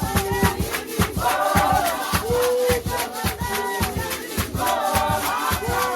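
Music: several voices singing together over a fast, steady rattling beat.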